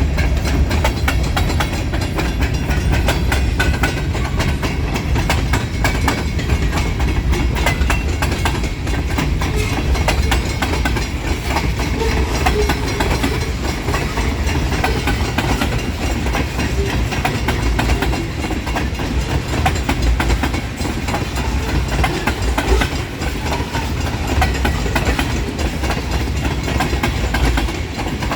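Freight cars of a long train rolling past, a steady heavy rumble with the wheels clicking and clacking over the rail joints.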